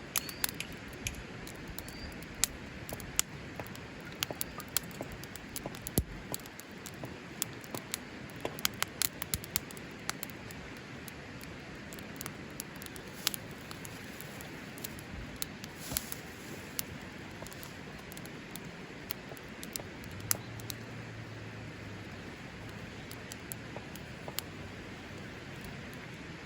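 Wood fire crackling, with many sharp irregular pops over a steady hiss; the pops come thickest in the first two-thirds and thin out after.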